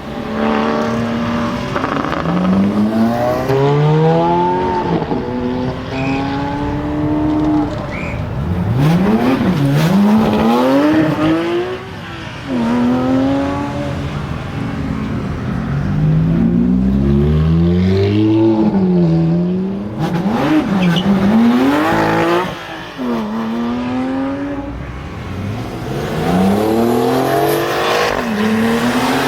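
Supercar engines accelerating hard and passing by, their pitch climbing through each gear and dropping at the shifts, over and over.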